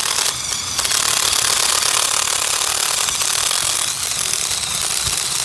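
Ridgid cordless impact driver hammering rapidly as its bit bores into a galvanized steel greenhouse pole. It runs loud and steady, easing briefly about half a second in.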